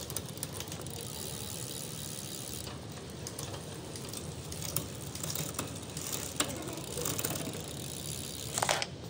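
Mountain-bike drivetrain running with the rear wheel spinning: the chain rattles over the cassette and through a newly installed microNEW rear derailleur, with scattered clicks. A short, louder rattle comes near the end.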